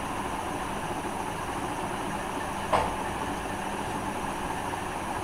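Steady background hiss with a faint low hum, broken once, a little past halfway, by a brief click.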